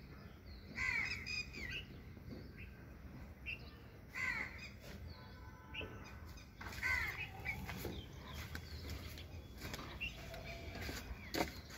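Bird calls: a few short falling calls about a second, four seconds and seven seconds in, over faint background noise, with a single sharp knock near the end.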